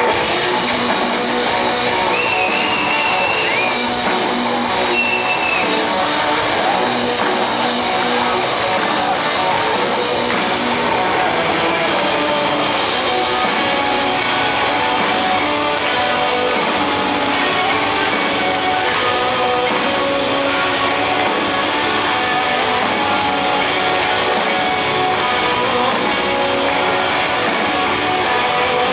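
Live rock band playing guitars and drums, loud and continuous, heard from within the crowd.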